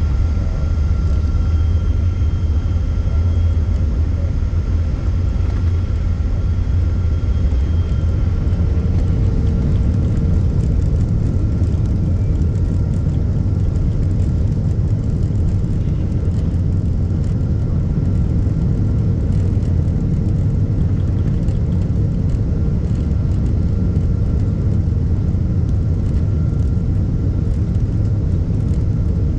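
Steady low rumble heard inside the cabin of a Boeing 777-200ER taxiing on the ground, its Rolls-Royce Trent 892 engines near idle, with a faint steady whine over it.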